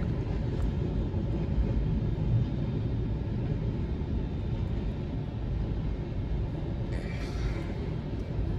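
Freight train of tank cars rolling past at a level crossing: a steady low rumble of steel wheels on the rails, heard from inside a car's cabin.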